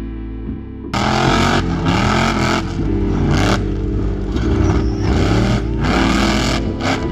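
Rock bouncer buggy engine revving hard in repeated full-throttle bursts, starting about a second in, its pitch climbing and dropping with each burst.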